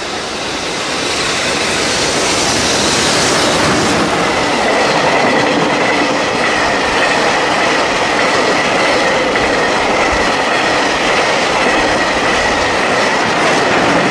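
Loco-hauled freight train of tank wagons coming out of a tunnel and passing close by at speed. The rumble builds over the first few seconds, then holds as a steady clatter of wheels over the rails while the tank cars go by. A steady high squeal from the wheels runs over it.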